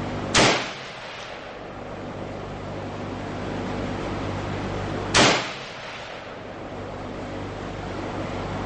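Two shots from a Yugoslavian M59/66 SKS semi-automatic rifle in 7.62x39, about five seconds apart, each a sharp crack with a short echo under the covered firing line's roof. A steady low hum runs underneath.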